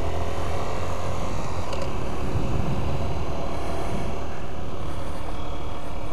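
Honda XR125's single-cylinder four-stroke engine running steadily while riding, mixed with wind noise on the helmet camera microphone.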